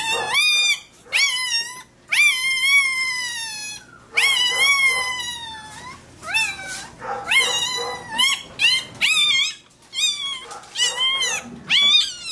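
Newborn Rottweiler puppy crying out with a string of shrill, high-pitched squeals as its tail is docked. Each cry rises then falls in pitch, and after a long cry near the start they come shorter and faster.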